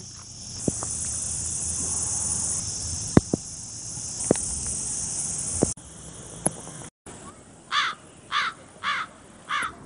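Cicadas buzzing in a steady, high-pitched drone. After a cut, a bird gives four short calls about half a second apart.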